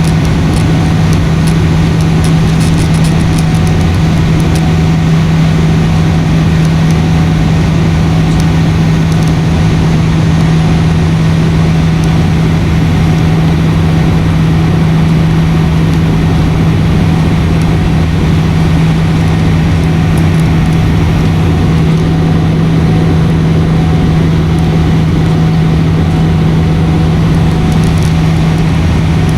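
Airliner cabin in flight: steady engine and airflow drone with a strong, unwavering low hum.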